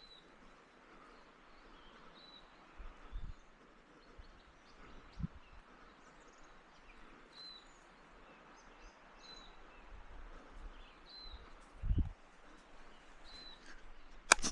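A bird repeating a short high chirp about every two seconds, with a few dull low bumps. A single sharp, loud click near the end.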